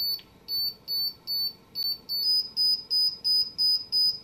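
Audible level alert of an Empire digital spirit level: short, high electronic beeps, about two a second, that step up slightly in pitch and quicken to about three a second a little past halfway. The quickening beeps signal the level closing in on dead level as the reading drops toward zero.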